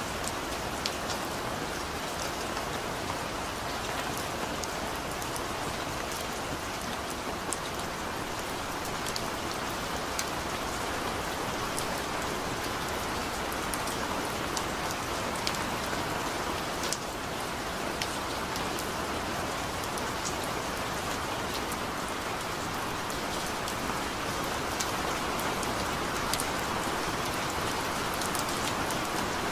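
Steady rain falling: a continuous hiss with scattered sharp ticks of single drops striking, getting a little heavier near the end.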